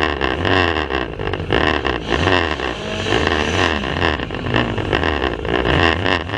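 Several banger racing cars' engines running and revving together on track, in a rough, poor-quality recording.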